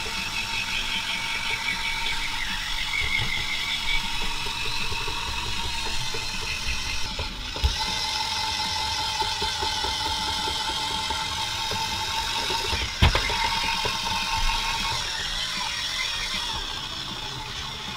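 Battery-powered toy slime mixer running, its small electric motor whirring steadily with a wavering pitch as its beater stirs glue and activator into slime in a plastic test tube. A sharp knock about thirteen seconds in.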